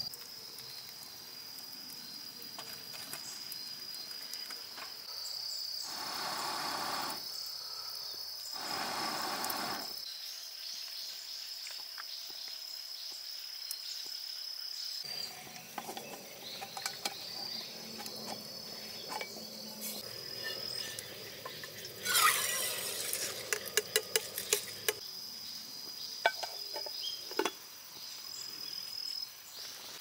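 Insects trilling steadily at one high pitch. Two short whooshes come early on, and about three-quarters through there are quick metallic clinks as a camp cooker is handled and set on the stove.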